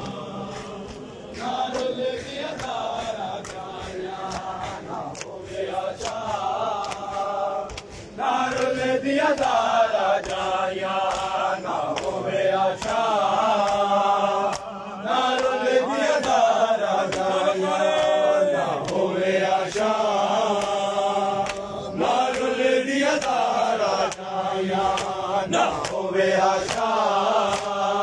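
Men's voices chanting a noha, a Shia lament, with rhythmic slaps of matam, hands striking chests, keeping the beat.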